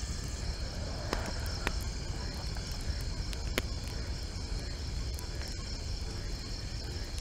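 Night-time outdoor ambience: crickets chirring steadily over a low rumble, with a few sharp crackles from a small wood campfire.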